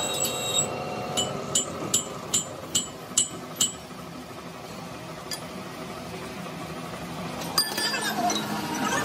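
Metal striking metal in a run of sharp ringing clinks, about two and a half a second, for the first three and a half seconds. After that comes a quieter steady machine noise, then a metallic clank near the end and a low steady hum.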